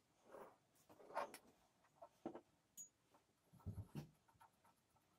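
Quiet, scattered handling sounds as tissue paper is glued down inside a small wooden box: a few separate brief rubs and light knocks, with a duller bump near the end.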